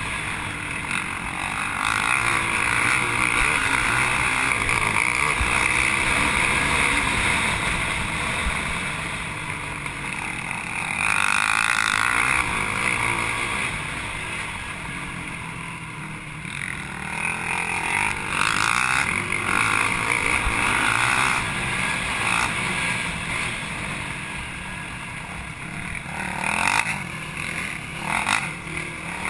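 Racing ATV (quad) engine heard up close from on board, revving and backing off again and again with the throttle as it is ridden hard over rough trail, with short sharp bursts of revs near the end.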